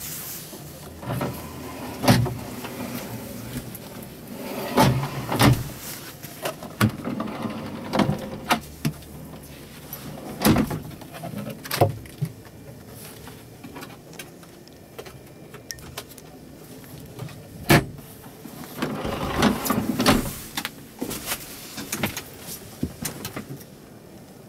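Plastic storage compartment lids and a pull-out refrigerator drawer in a truck cab being opened and shut by hand: a series of sharp knocks and clicks, with a longer stretch of handling noise near the end.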